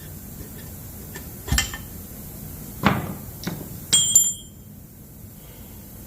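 A few sharp metallic knocks and clanks of hand tools against a big-block V8 engine, spaced out, with a brighter ringing clink about four seconds in.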